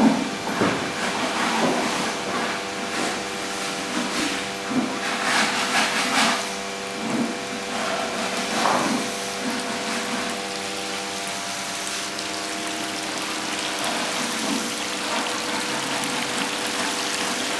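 Electric water pump humming steadily, with water running and splashing, and scattered knocks and handling noises.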